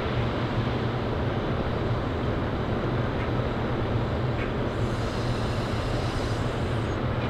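Volvo FH13 540 truck's 13-litre straight-six diesel running at low revs as the truck and trailer reverse, a steady low drone. A soft hiss joins in for about two seconds just before the end.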